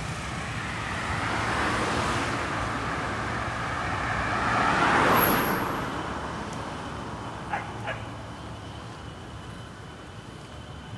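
Street traffic, with a vehicle passing close by: its noise swells to a peak about five seconds in, then fades away. Two short clicks come a little later.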